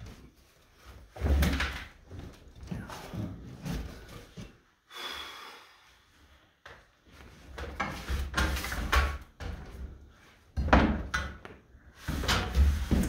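Plywood roof decking being worked loose from wooden rafters: irregular knocks, creaks and scraping of wood, with a brief high squeak about five seconds in and a cluster of louder knocks toward the end.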